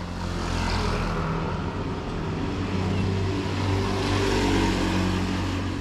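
Motor vehicle engine running steadily, a continuous hum over street traffic noise.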